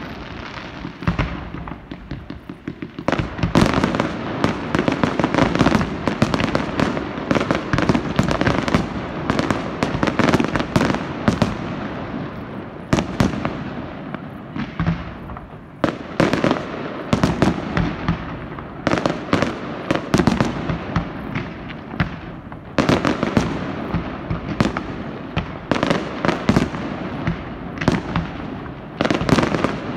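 Fireworks display: a dense, rapid barrage of bangs and crackling. It thickens about three seconds in and keeps up with only brief lulls.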